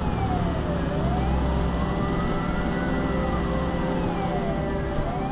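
Fire engine siren wailing, rising and falling slowly, about one full cycle every four seconds, over the steady hum of the truck's engine.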